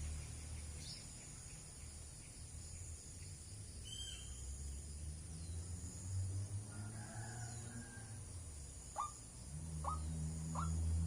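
White-breasted waterhen calling: a run of short, repeated calls about one every two-thirds of a second begins near the end, with faint high chirps of other birds earlier on. A steady low rumble runs underneath.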